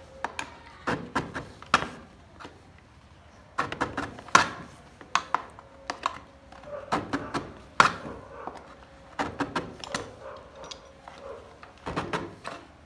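A thin blade cutting through the hard plastic rear mudguard of a motorcycle: irregular scraping strokes, clicks and knocks as the plastic gives, with a quieter pause about two to three seconds in.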